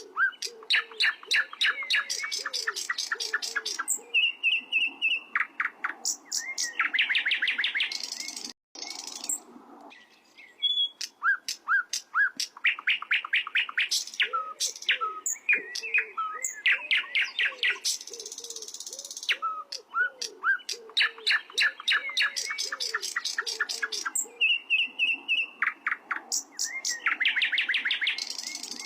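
Sikatan londo flycatcher singing: fast trills of rapidly repeated notes mixed with short whistled phrases, in bursts broken by brief pauses, one of them about nine seconds in. Faint low repeated notes sound underneath.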